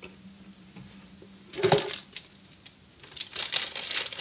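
Food packaging crinkling and rustling as it is handled. A brief rustle comes about one and a half seconds in, then a denser run of crackly crinkling from about three seconds on.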